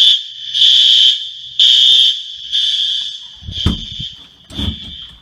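Apartment building fire alarm sounding, a loud high-pitched tone pulsing about once a second. The pulses grow fainter over the last couple of seconds, and two dull thumps come near the end.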